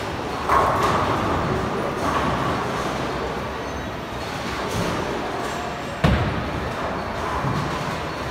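Bowling alley din: a steady rumble of balls rolling down the lanes, broken by two sudden crashes, about half a second in and again at about six seconds, typical of balls striking pins.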